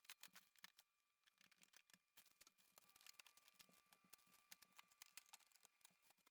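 Near silence with faint scattered clicks and ticks.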